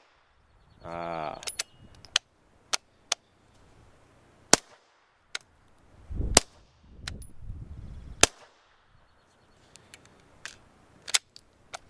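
Suppressed 9mm shots from a SAR9 SOCOM pistol fitted with a Rugged Obsidian 9 suppressor in its short configuration. About four louder sharp shots come roughly two seconds apart, with smaller clicks between them. The pistol is not cycling reliably in this short setup.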